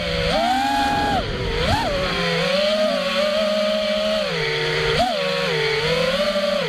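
FPV racing quadcopter's brushless motors and propellers whining, the pitch rising and falling with the throttle, with quick upward blips about two seconds in and again about five seconds in.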